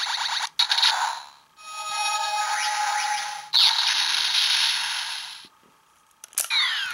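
Kamen Rider Double DX Double Driver toy belt playing its electronic maximum drive sound effects through its built-in speaker: electronic tones and a short jingle, then a loud whoosh that stops about five and a half seconds in. A click follows about a second later, then falling electronic sweeps.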